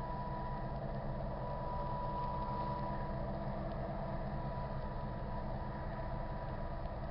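Steady low engine rumble with a faint constant high tone above it.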